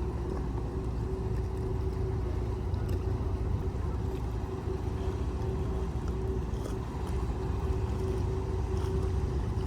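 Marine engines running steadily: a low, even rumble with a constant mid-pitched hum over it.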